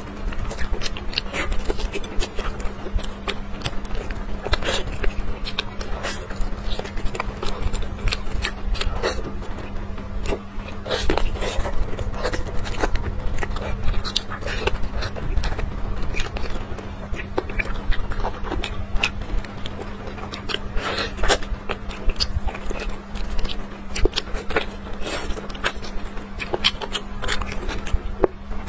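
Close-miked eating of braised pork trotter: wet chewing, lip smacking and many sticky clicks as the skin and meat are bitten and pulled apart by hand. A steady low hum runs underneath.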